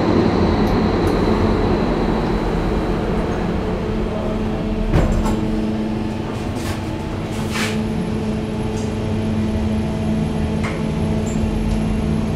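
Kone traction elevator doors sliding shut near the start, then the car travelling one floor with a steady drive hum and a few short clicks along the way.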